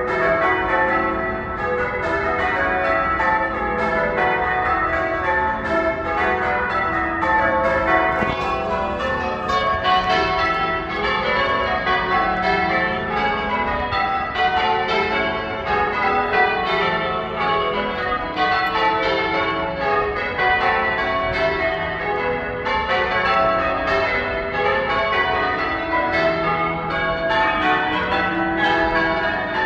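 Church bells being change rung: tower bells struck one after another in a steady, unbroken sequence, their ringing tones overlapping.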